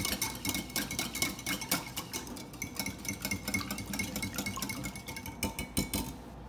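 Hand wire whisk beating milk, egg and melted butter in a ceramic bowl, the wires ticking rapidly against the bowl's side; the ticking stops shortly before the end as the whisk is lifted out.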